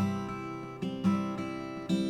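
Acoustic guitar playing an instrumental passage of a folk song, chords strummed or picked with a fresh attack about every half second to second.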